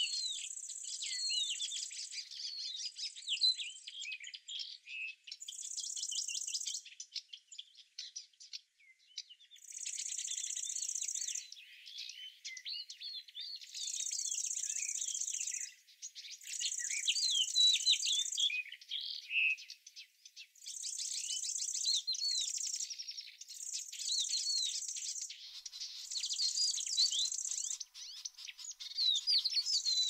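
Songbirds chirping and twittering in many quick notes, overlaid by an insect's high, steady buzzing song that starts and stops every second or two.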